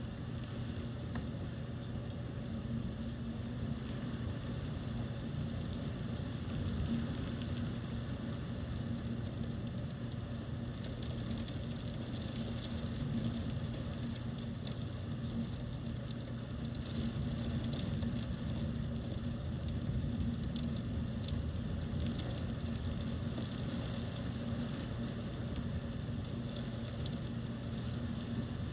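Heavy rain falling steadily, with fine pattering of drops and a constant low hum underneath.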